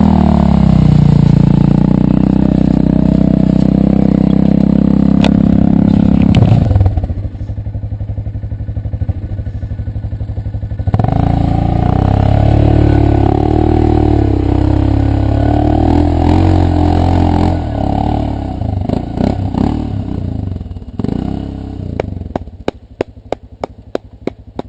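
ATV engines running hard under load, revving as a Polaris Sportsman quad churns through deep mud, easing off and then pulling hard again. Near the end the engine noise falls away and a run of sharp, evenly spaced ticks, about three a second, is heard.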